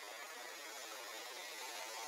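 Steady, even background hiss with no distinct event in it.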